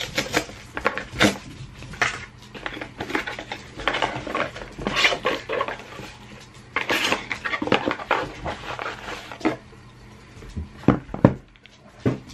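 Small cardboard shipping box being opened by hand: its flaps pulled open and the packaging handled in a run of irregular crackles and scrapes, with a few sharp knocks near the end.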